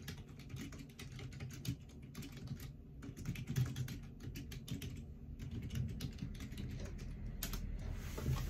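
Typing on a computer keyboard: irregular runs of key clicks over a low steady hum.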